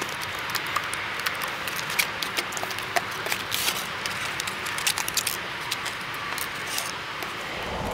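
Rigid clear plastic packaging tray crackling and clicking as it is handled and pulled apart by hand, with many small sharp clicks scattered throughout.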